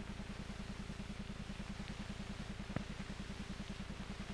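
Background hum and fast, even low throb of an old film soundtrack, with one faint click a little under three seconds in.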